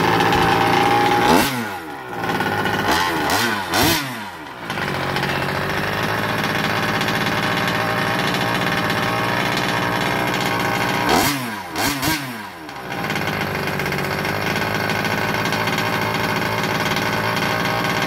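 Small fuel engine of an RC car running steadily on a stand, its throttle blipped in short revs that fall back: about a second and a half in, twice around three to four seconds, and two or three times around eleven to twelve seconds. The engine is still in its break-in heat cycles.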